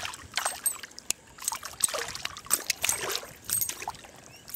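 Water splashing and dripping in short, irregular bursts beside a kayak as a small hooked bass is brought alongside.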